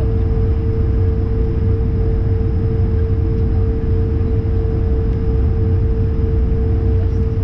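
Steady cabin noise inside an Airbus A220-100 on the ground: a constant low rumble with a steady, even hum over it, unchanging throughout.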